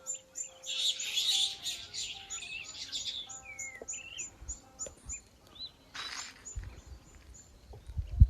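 Birds chirping and singing, one giving a quick series of short, high notes, about three a second, for the first five seconds or so, with other chirps among them.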